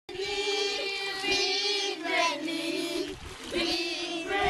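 A group of children singing together in unison, holding long notes, with a short break about three seconds in.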